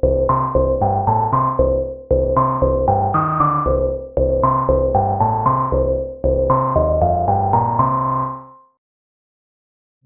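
u-he Diva software synthesizer playing a Juno-6-style preset: a bouncy phrase of short, plucked, decaying notes over a low bass line. The phrase repeats four times, about every two seconds, and stops near the end.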